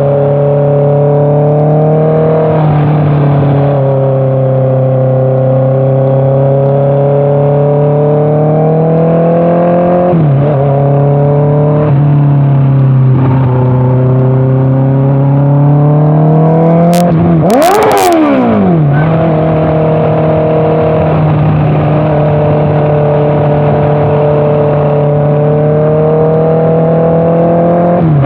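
Honda CBR650R inline-four engine running through an Orion aftermarket exhaust while riding, holding steady revs with several brief dips and rises in pitch. A little past halfway the revs drop sharply and climb straight back, with a few sharp clicks.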